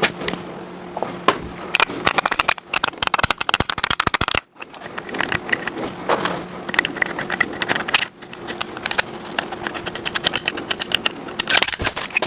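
Hand-tool work on the engine: several runs of rapid metallic clicking and tapping, each cut off abruptly, over a faint steady hum.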